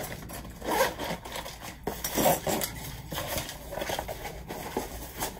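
Zipper of a Fjällräven Kånken backpack's main compartment being pulled open in a few short strokes, with the bag's fabric rustling as it is handled.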